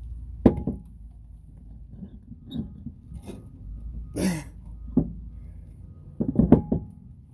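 Scattered knocks and clunks, about half a dozen single hits and a quick cluster of several near the end, from handling tools and parts during a tire change.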